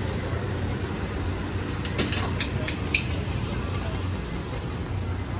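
Steady low street rumble, with a quick run of about five ringing clinks of dishes and tableware about two seconds in.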